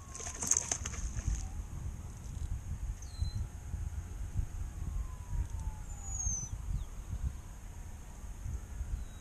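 Wind rumbling on the microphone, with a brief high-pitched whir and rapid clicking about half a second in from the casting reel's spool paying out line as a lure is cast.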